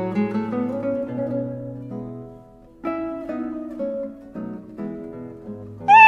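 Acoustic guitar music, plucked notes in a quick melody, dropping out for a moment about two and a half seconds in. Right at the end a loud high cry cuts in, sliding down in pitch.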